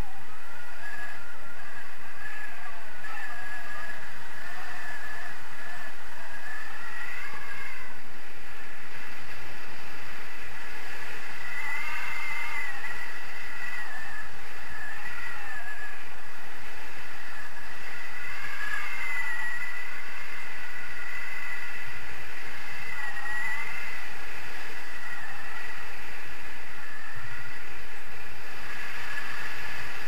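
Wind rushing over the camera microphone in paraglider flight, steady throughout, with a high whistle that wavers up and down in pitch.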